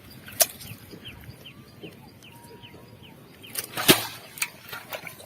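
Two sharp smacks, a brief one about half a second in and a louder one near the four-second mark, over a bird calling in a quick run of short falling chirps.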